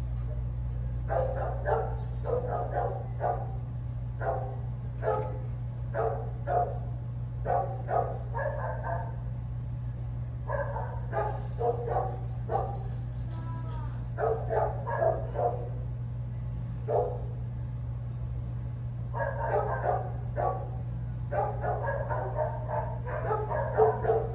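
Rottweiler barking repeatedly in quick bunches of several barks, with short pauses between bunches, over a steady low hum.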